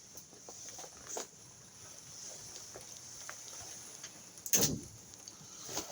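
Light rain pattering, with scattered small ticks and a short thump about four and a half seconds in.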